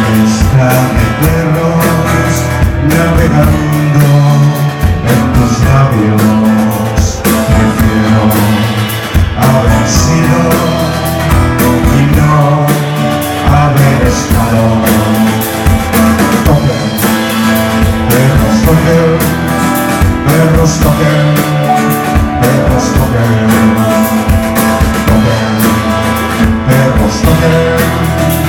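Live rock band playing loud: electric guitar and drum kit driving a steady beat.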